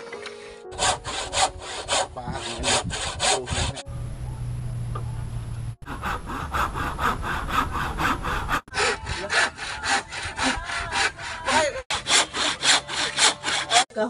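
Hand saw cutting wooden planks: quick back-and-forth strokes, about four a second. The sawing breaks off and restarts several times, and a steady low hum takes its place for a couple of seconds around the middle.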